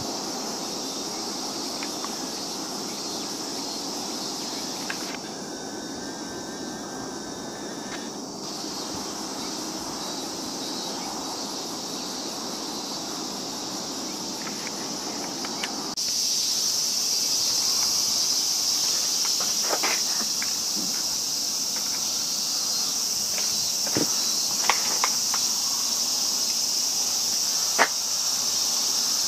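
Insect chorus: a steady, high-pitched chirring that grows louder about halfway through, with a few sharp clicks in the second half.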